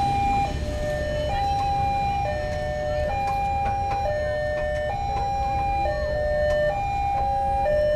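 Railway level-crossing warning alarm ringing with its electronic two-tone signal, alternating evenly between a higher and a lower tone, each held just under a second. It sounds while the barrier arms are down, the sign that a train is approaching.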